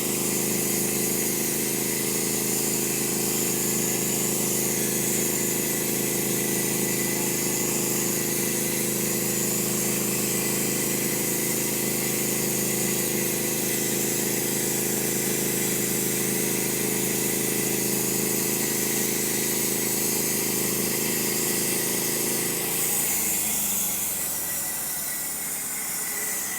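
Norwood HD36v2 portable bandsaw mill's gasoline engine running steadily at speed, then throttled down near the end, its pitch falling.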